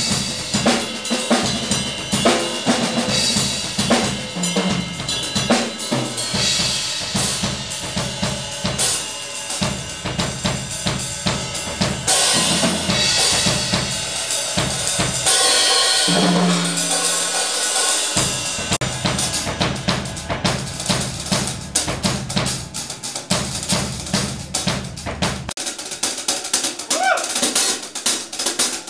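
Yamaha acoustic drum kit played fast: a dense run of snare and bass drum strokes with cymbal crashes washing over them, the low bass-drum beats stopping near the end.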